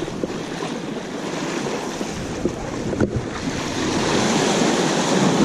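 Small waves washing and splashing against jetty rocks, with wind buffeting the microphone. A single sharp click about three seconds in, and the wash grows louder near the end.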